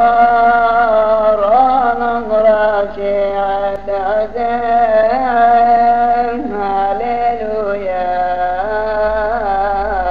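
A single male voice chanting a Syriac Orthodox hymn unaccompanied, in long held notes with ornamented slides between pitches, over a low steady hum.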